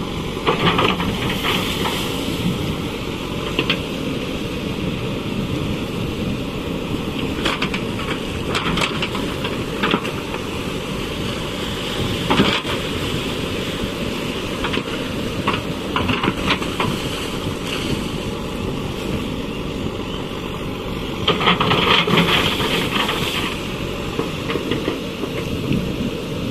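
JCB backhoe loader's diesel engine running steadily while the backhoe bucket scoops river water and pours it out, with bursts of splashing every few seconds, the longest near the end. Wind noise on the microphone.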